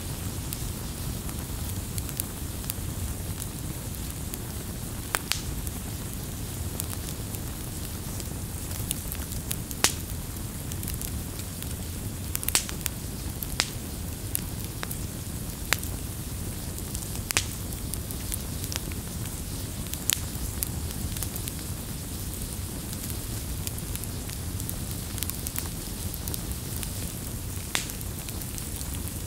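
Wood campfire burning: a steady low rush of flames with irregular sharp crackles and pops from the logs, about one every second or two, one louder pop about ten seconds in.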